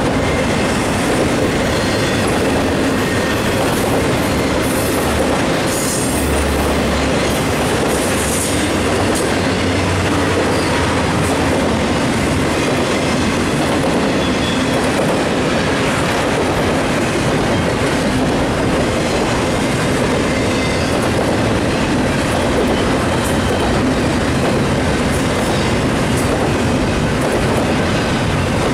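CN double-stack intermodal freight train rolling past: a steady, loud rumble and rattle of steel wheels and container well cars on the rails, with a couple of brief high screeches about five and eight seconds in.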